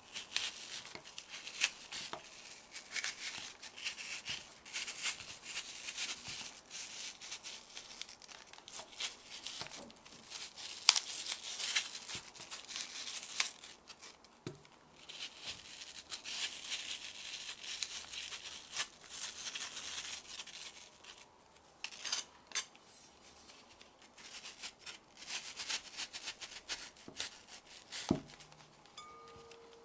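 Kitchen knife slicing a raw apple thinly on a cutting board: a run of crisp cutting strokes with sharp clicks of the blade, pausing briefly now and then.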